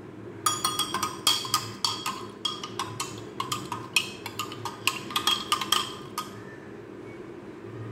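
Metal spoon stirring liquid in a glass bowl, clinking rapidly and irregularly against the glass; the clinks stop about six seconds in.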